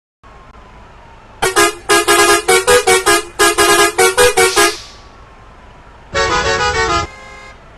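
Multi-tone bus horn playing a rapid run of short blasts that step between a few notes for about three seconds. After a pause it plays one longer phrase of changing notes lasting about a second.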